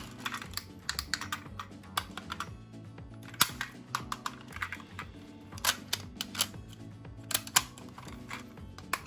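Irregular light clicks and clacks from a toy ambulance minicar on a slope, with steady music underneath.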